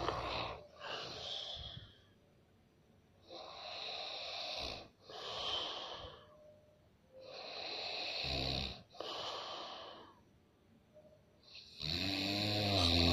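A sleeping person snoring heavily: four snoring breaths about every four seconds, each a rasping stretch followed by a shorter breathy one, the last the loudest with a deep rattling tone.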